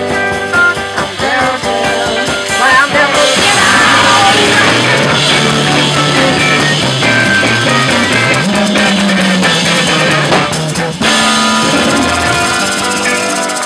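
Live rock and roll band playing: electric guitar, drum kit and bass, with maracas shaken at the microphone. The full band gets louder about three seconds in.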